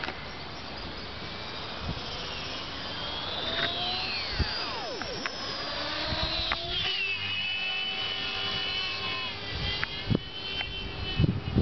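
450-size RC helicopter's motor and gears whining, the pitch sweeping down and up before settling into a steady high whine about seven seconds in. A few short knocks and low thumps come near the end.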